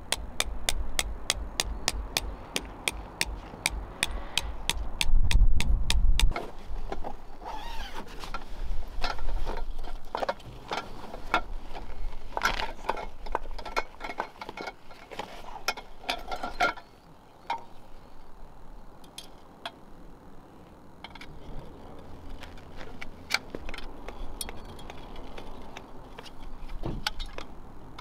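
A mallet drives a metal tent peg into hard gravelly ground: quick, ringing strikes about three a second for the first six seconds. After that come irregular clicks and rattles of tent gear being unpacked and a metal tent pole being handled, growing sparser toward the end.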